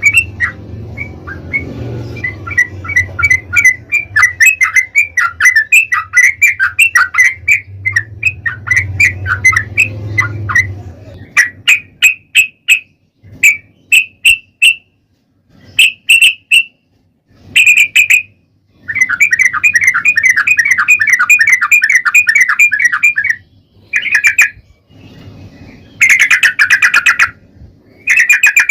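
Yellow-vented bulbul (trucukan) singing loud, rapid chattering phrases, the long 'ropel' song used to lure other bulbuls into answering. A low hum sits under the song for the first ten seconds or so. After that the song comes in separate bursts, including one unbroken run of about four seconds.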